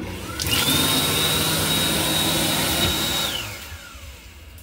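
Train restroom hand dryer under the sink shelf blowing: a loud rush of air with a motor whine that rises as it spins up about half a second in. The whine holds steady, then winds down and fades a little over three seconds in.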